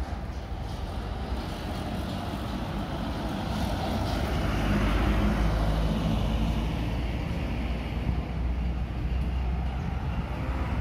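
Truck engines running as one truck passes close by, swelling to loudest about halfway through, with a loaded sugarcane truck's engine following around the bend.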